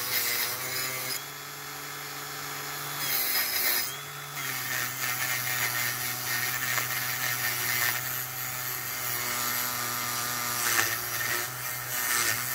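Handheld rotary tool spinning a small wire brush wheel against a diecast zinc-alloy toy car base plate, cleaning the bare metal. A steady motor whine runs under a scratchy brushing hiss, which eases about a second in and again around four seconds in as the brush comes off the metal.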